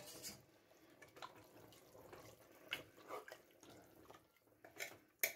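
A metal ladle stirring a watery spinach and mutton gravy in a pressure cooker: faint wet sloshes with light scrapes and clinks of the ladle against the pot, the sharpest just after five seconds in.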